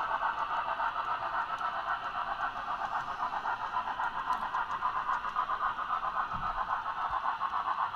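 N scale model freight train rolling along the track, a steady rushing clatter of wheels and motor that pulses quickly and evenly.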